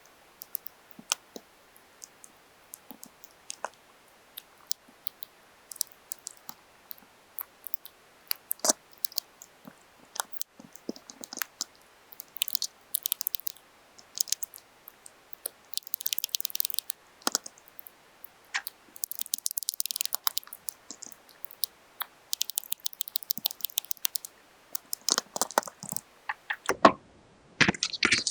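Paper being handled and crinkled during hand crafting: scattered small clicks and crackles, with several brief rustling bursts in the middle and denser, louder crinkling near the end.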